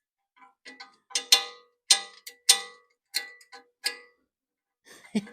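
Sharp metallic clicks and clinks from hand tools working on the steel bash guard and its mounting bolts, a handful of irregular strikes with a short ring after each.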